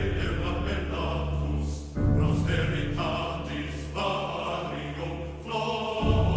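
Background music of choir voices over sustained low notes, swelling anew about two seconds in and again near the end.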